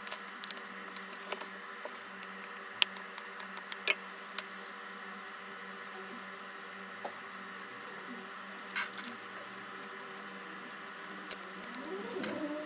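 Scattered small sharp clicks and taps over a steady electrical hum, typical of tools and parts being handled during a smartphone glass repair. A short rising sound comes in near the end.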